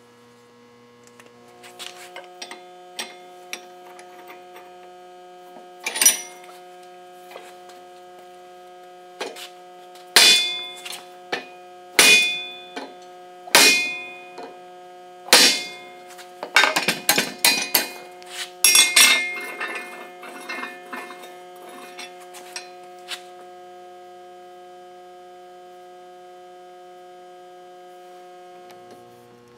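Sharp metal-on-metal clangs at a steel bench vise, each ringing briefly. About five are spaced a second or two apart, then comes a quicker run of clanks and rattles. A steady electrical hum lies underneath.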